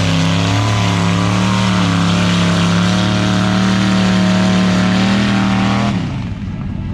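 Off-road vehicle engine held at high revs, a loud steady drone whose pitch steps up slightly about half a second in, then cuts off abruptly about six seconds in.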